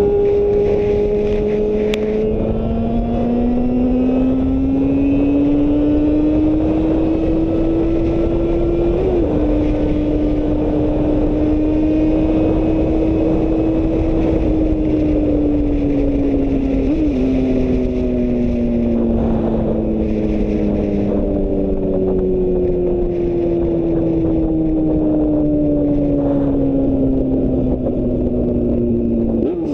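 Inline-four sport motorcycle engine running through a four-into-one exhaust. Its pitch climbs slowly over the first several seconds, holds, then sinks gradually, with brief blips about a third and about three fifths of the way through.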